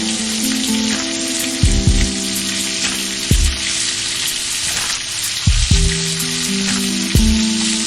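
Food deep-frying in hot oil: a steady, dense sizzle. Background music with held notes and a low beat plays along.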